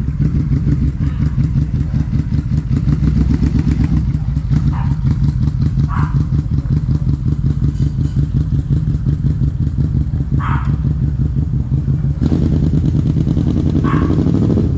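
Yamaha V-Max 1200's V4 engine running at low revs through a handmade custom exhaust, a steady rapid exhaust pulse with a few short clunks.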